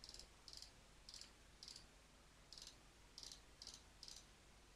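Faint computer mouse clicks, about eight, at irregular intervals, as numbers are keyed into an on-screen calculator.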